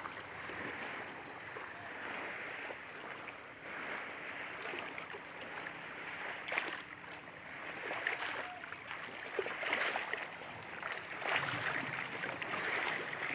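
Lake waves washing and lapping along the shore, swelling and easing in uneven surges.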